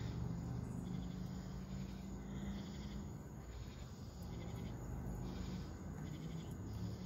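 Crickets trilling in short bursts over a steady low hum.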